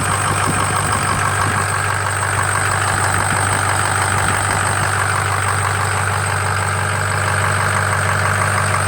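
Ford engine idling cold, with a light, steady squeal from the ribbed serpentine drive belt. The belt, water pump, alternator and idler rollers are new or like new, leaving the original crankshaft, A/C compressor and power-steering pump pulleys as the remaining suspects.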